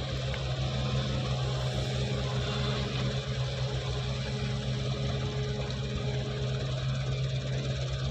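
Wheeled excavator's diesel engine running steadily under load while it works the boom to load a dump truck: a constant low hum with a fast low throb underneath.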